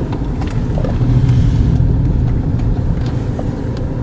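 Car engine and road noise heard from inside the cabin while driving: a steady low rumble that swells slightly about a second in.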